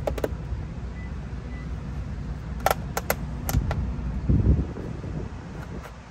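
Red plastic trim tool prying at the snap-on mirror cap of a BMW X5 F15: a few sharp plastic clicks of tool and clips against the cap, and a duller knock a little past the middle, over a low steady rumble.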